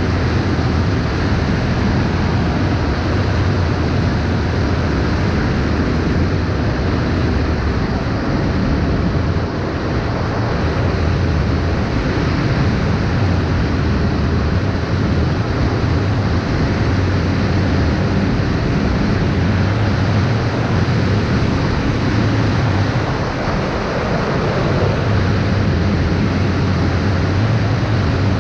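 Steady, loud rushing noise of an FPV drone in flight, heaviest in the low end: wind buffeting the microphone mixed with the drone's motors.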